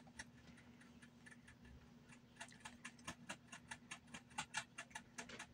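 Faint rapid ticking, about five clicks a second, over a low steady hum. The ticks are sparse for the first two seconds, then run on evenly from about two and a half seconds in.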